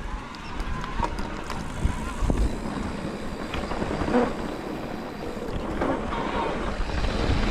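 Wind rushing over the microphone and the rolling rumble of a mountain bike's tyres on a dirt trail, with a few knocks and rattles from the bike.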